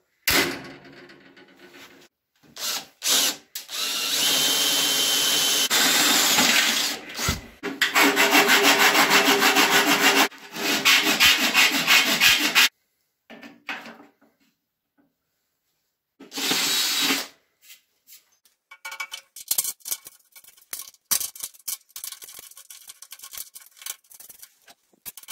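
A hand-held power tool working on a steel door frame in several loud bursts of a few seconds each, each cutting off abruptly, followed by scattered light clicks and knocks of hand work on the metal parts.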